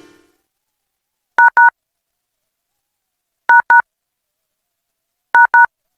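Three pairs of short two-tone beeps, about two seconds apart, like telephone touch-tone (DTMF) signals, sent over the community FM radio stream.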